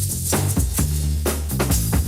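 Breakbeat electronic dance music: a broken, irregular drum pattern with crisp hits over a sustained deep bass line.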